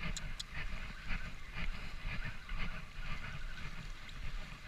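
Spinning reel being cranked to wind in line, its handle turning in a rough rattling rhythm about twice a second, with a few sharp clicks just after the start. Wind and surf wash low underneath.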